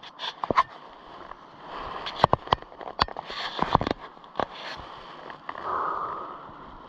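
Footsteps crunching and snapping through dry grass and undergrowth: irregular sharp cracks over a steady rustle that swells for a moment near the end.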